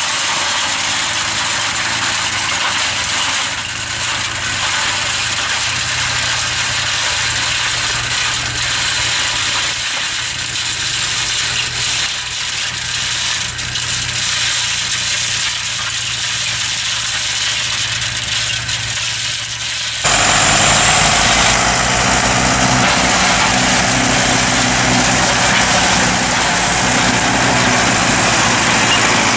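Fendt vineyard tractor's engine running steadily while its rear-mounted HUMUS flail mulcher works down the row. About two-thirds of the way through the sound jumps abruptly louder and deeper, heard from right beside the tractor.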